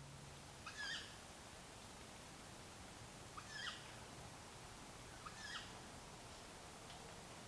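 Three short, sharp animal calls about two seconds apart, faint over a steady background hiss.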